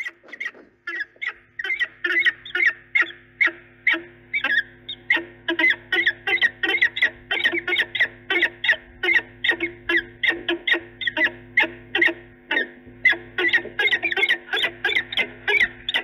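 Peregrine falcons giving a rapid, repeated series of short, sharp calls, about three a second. These are the ee-chip calls of a courting pair's bowing ledge display at the nest box.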